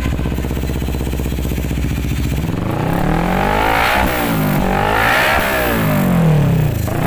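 CFMoto NK400 motorcycle engine through a Villain Hyper V1 aftermarket slip-on muffler, idling steadily, then blipped about three times from a little past two seconds in, the pitch rising and falling with each rev. This is a sound check of the muffler.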